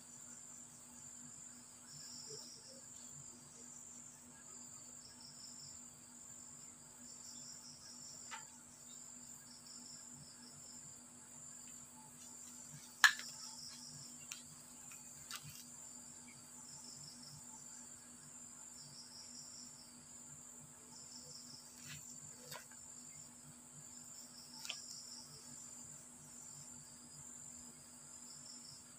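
Insects chirring steadily: a high thin whine with a pulsing chirp repeating every second or two. A few light taps and clicks come through, with one sharp tap near the middle the loudest.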